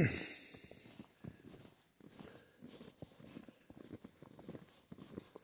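Footsteps crunching in snow, a soft thud every half second or so, with a sharp knock and rustle right at the start.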